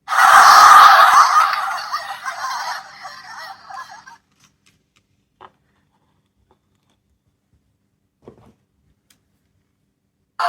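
Small electronic capsule toy playing a loud recorded sound effect that starts suddenly and fades out over about four seconds, followed by two faint clicks.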